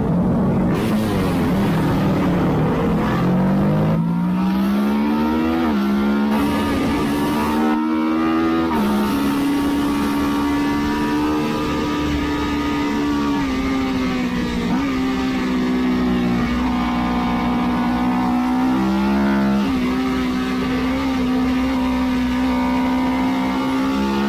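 Racing CF Moto twin-cylinder motorcycle engine at full race pace, heard from the bike itself: the revs fall at first as it slows, then climb hard with quick drops at upshifts about five and a half and eight and a half seconds in, then hold high and fairly steady with short dips, rising again near the end.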